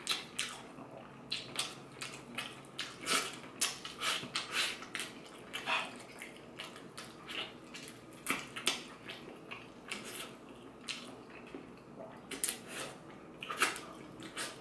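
Close-up eating sounds: wet lip smacks, sucking and chewing as a man bites and pulls apart stewed chicken with his fingers. Irregular sharp smacks and clicks, several a second.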